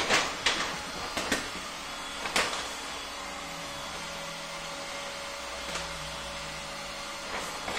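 Vinyl wrap film crackling and snapping as it is lifted and stretched by hand over a car bumper: four sharp crackles in the first two and a half seconds. A steady fan-like hum runs underneath.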